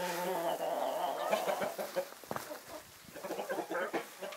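A small flock of chickens clucking, with short calls overlapping one another. It goes quieter for a moment a little past the middle.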